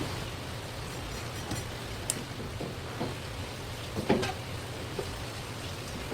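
Knife and fish handling on a cutting board: a few light knocks and clicks, the loudest about four seconds in, over a steady low hum.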